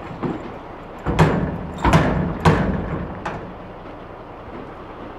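A run of loud bangs, like slams, three strong ones between about one and two and a half seconds in and a weaker one just after three seconds, each dying away quickly, over a steady low background noise.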